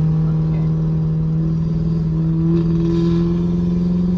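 Vehicle engine running steadily with a strong low drone, its pitch creeping slightly higher partway through as it gathers speed.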